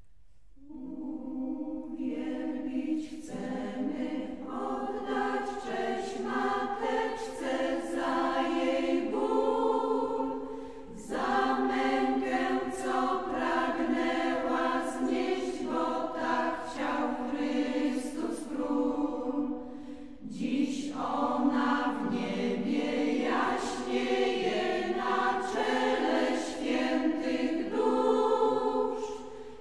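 Mariavite choir singing a Polish hymn in long phrases, with brief breaks between phrases about ten and twenty seconds in.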